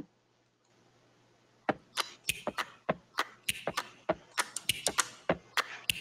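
About two seconds of near silence, then a run of sharp clicks and taps, several a second and unevenly spaced.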